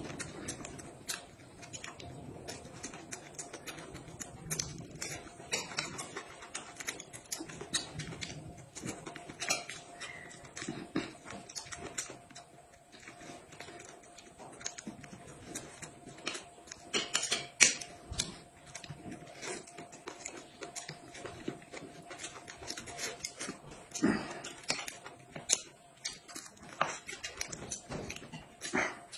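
Close-up eating sounds of two people chewing steamed buns, with irregular small clicks and taps of chopsticks against porcelain plates, one sharper clack a little past the middle. A faint steady hum runs underneath.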